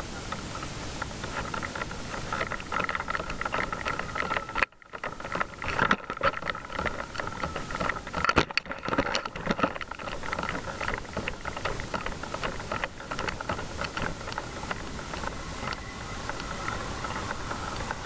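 Footsteps and the knocking rattle of a firefighter's gear while walking, over a steady mechanical hum of fire apparatus running. The rattling is busiest for a few seconds around the middle.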